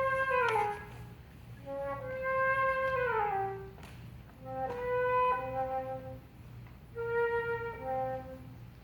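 Solo flute playing four long held phrases in the middle register, the first two ending in slow downward slides in pitch, the flute's musical depiction of wolves howling.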